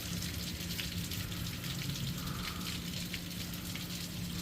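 Steady rain falling from a thunderstorm, with scattered drops ticking on hard surfaces, over a low steady hum.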